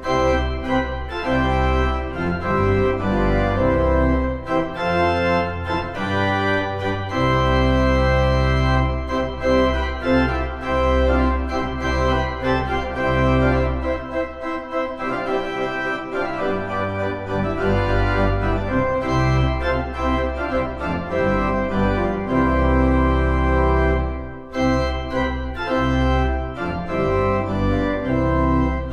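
Church organ playing full sustained chords over deep pedal bass notes, with a short break between phrases near the end.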